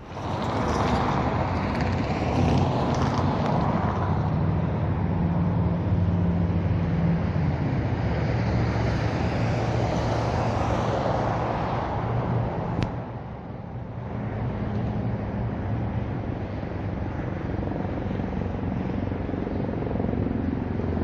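Road traffic: motor vehicles going by with engine hum and tyre noise, swelling and easing as they pass.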